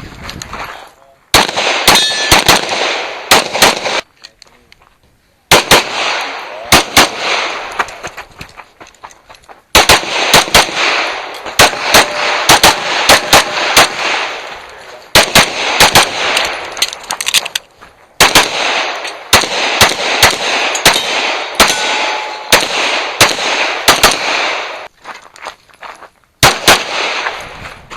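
Handgun fired in quick strings of shots during a USPSA stage, with short pauses between strings. Steel targets give a brief metallic ring a few times.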